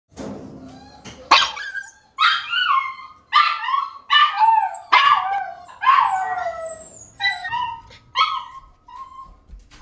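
Dogs in shelter kennels barking and yelping, roughly one bark a second, with a longer falling yelp about six seconds in.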